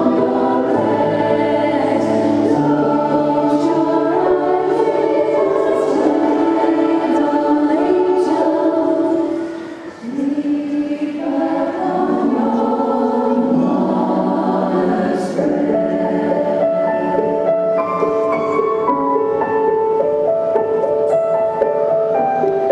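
Women's choir singing in multi-part harmony, holding sustained chords, with a short break in the phrase about ten seconds in.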